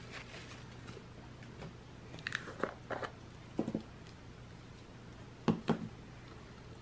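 A few faint clicks and taps of small paintball marker parts being handled on a rubber work mat, over a low steady hum.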